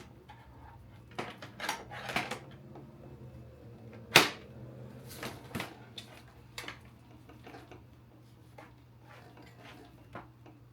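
Hard plastic parts of a cordless upright vacuum being handled and fitted together: a series of scattered clicks and knocks, with one sharp snap about four seconds in. The motor is not running.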